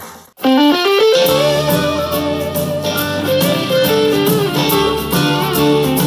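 Blues-rock electric guitar music played back through a portable Bluetooth speaker for a sound test. The previous track fades out, and after a brief gap the new track starts with a quick rising run of guitar notes and carries on steadily.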